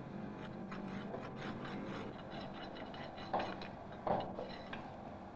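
Farrier's rasp filing the clinched nail heads flush on a pony's hoof: a run of repeated scraping strokes, the last stage of shoeing. Two brief louder sounds come about three and four seconds in.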